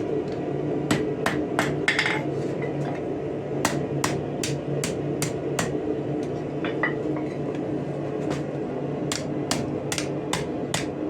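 Hand hammer striking steel on an anvil in runs of sharp blows, about three a second, with short pauses between runs, over a steady low hum.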